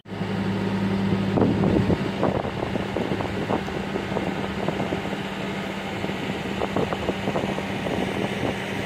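Engine running at a steady idle: an even low hum with an irregular rough crackle over it.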